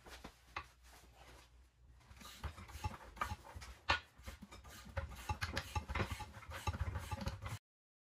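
Irregular knocks, clicks and rubbing of hands working on a steel Daytona 4-ton floor jack, sparse at first and busier from about two seconds in, cutting off suddenly near the end.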